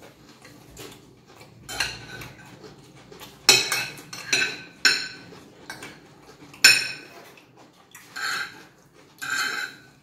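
Metal cutlery clinking and scraping on ceramic plates as two people eat, with chewing in between. A few sharp clinks stand out, the loudest about a third of the way in and again about two-thirds in.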